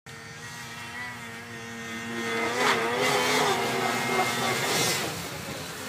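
Ski-Doo snowmobile engine running hard as the sled skips across open water, growing louder as it approaches and easing off near the end, with a hiss of water spray.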